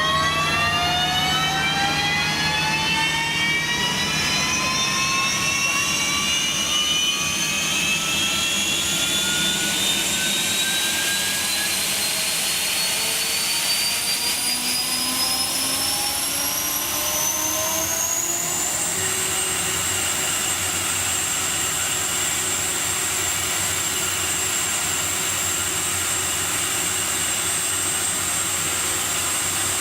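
Gas turbine of a mobile emergency power-supply vehicle spooling up on start: several whining tones rise steadily in pitch for about nineteen seconds, then level off into a steady high whine as the turbine reaches running speed.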